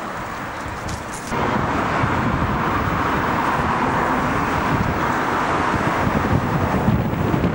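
Strong gusty wind buffeting the microphone: an irregular low rumble over a steady rushing noise that gets louder about a second and a half in.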